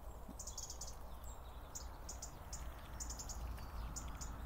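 Short, high chirps repeating in quick clusters of two to five, from a small bird or insect in the grass, over a steady low rumble.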